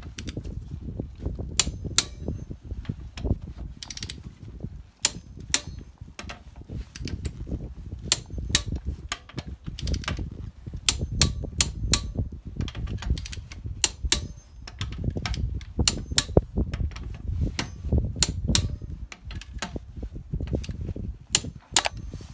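A socket ratchet clicking in irregular runs as the wheel bolts are wound in and tightened on a refitted front wheel, over a low rumble.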